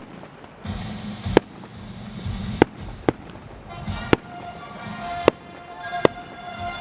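Fireworks display: seven sharp firework bangs, about one a second, over a low rumble. Music with held notes comes in about halfway through.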